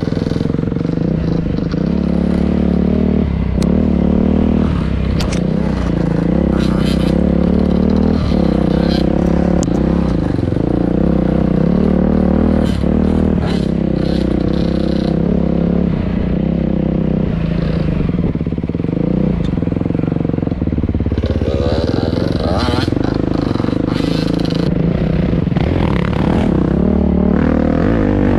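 Beta 350 Race Edition four-stroke single-cylinder dirt bike engine heard close from the rider's helmet, lugging at low revs through tight single track, its pitch rising and falling with the throttle. Short clacks and scrapes from the bike over the rough trail come and go throughout.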